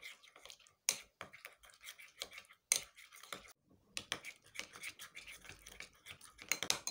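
Metal spoon stirring a thick paste in a glass bowl, scraping and clicking against the glass in quick, irregular strokes, with a brief pause about halfway through.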